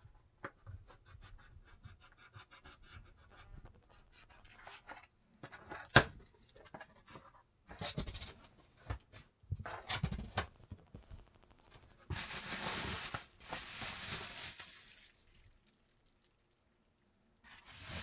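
Box cutter scratching along packing tape on a cardboard box, with one sharp click about six seconds in. Then the cardboard flaps are pulled open and the bubble wrap inside rustles and crinkles for a few seconds, and again near the end.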